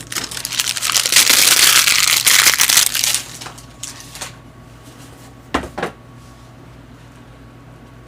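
Plastic wrap crinkling and tearing as a box of trading cards is unwrapped, a loud dense crackle for about the first three seconds, then a few light clicks of handling before it goes quiet.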